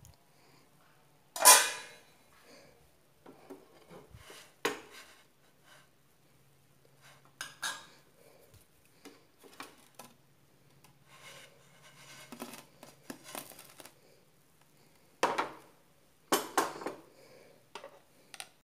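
Cookware clattering: a series of knocks, clinks and scrapes on a nonstick pan and a plate as the small dosas are taken off the pan, the loudest knock about a second and a half in.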